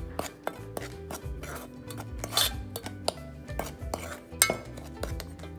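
Metal spoon stirring dry flour in a bowl, with irregular scrapes and clinks against the bowl's side and a couple of louder scrapes partway through, over background music.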